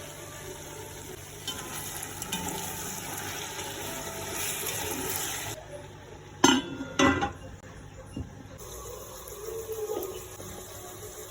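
Pot cooking sounds: a steady sizzling hiss, broken about six and seven seconds in by two sharp knocks.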